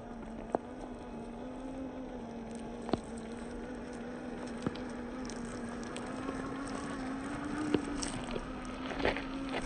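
Electric motor and geared drivetrain of a 1/10-scale Traxxas TRX-4 RC crawler whining steadily at one pitch as it climbs a dirt slope, the pitch wavering a little with load. A few sharp clicks and knocks sound over it, the loudest right at the start.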